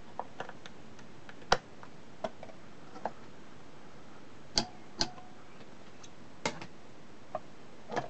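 Steady surface hiss from a record on an Ekco RP350 record player in the silent gap between songs, broken by about ten irregular sharp clicks and pops, the loudest about one and a half seconds in.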